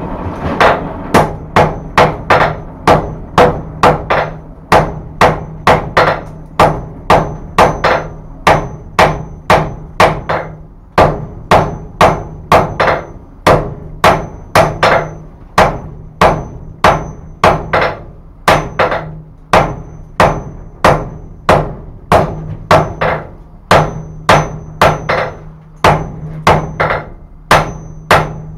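Hand hammer striking a billet at welding heat on an anvil, about two blows a second, each with a short metallic ring, over a steady low hum. These are forge-welding blows, fusing a high-carbon rasp and wagon-tire steel to wrought iron.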